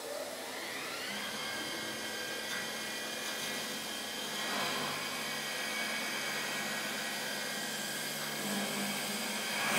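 A CNC wood lathe cutting a wooden chair or table leg with its spiral cutter head, with wood chips flying. A motor whine of several tones rises in pitch during the first second, then holds steady over the hiss of the cut.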